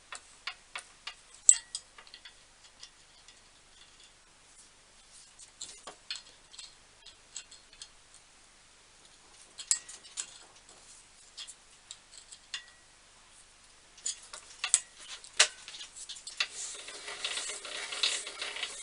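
Light metal clicks and ticks from hand work on a vintage bench drill, quick and fairly regular at first, then scattered, with a denser rasping, turning sound starting near the end.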